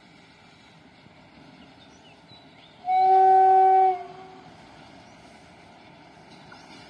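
An Indian Railways locomotive horn sounds one loud, steady blast of about a second, nearly three seconds in, over a faint background hiss.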